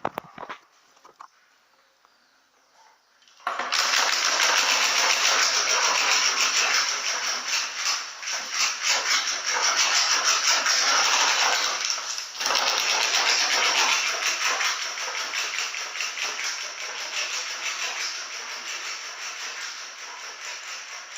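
Bike engine running loud through a big aftermarket exhaust fitted to make noise. It comes in suddenly about three and a half seconds in as a dense, rapid rattling blare, dips briefly in the middle, then fades gradually toward the end.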